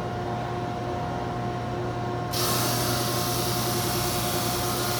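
Auto-feed belt sander and its dust-collection vacuum running with a steady hum. About two seconds in, a loud hiss starts suddenly and holds: a cedar board feeding into the sander and being sanded.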